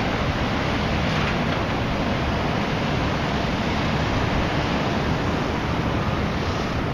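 Steady wind rushing over the camera microphone, a constant noise heaviest in the low end.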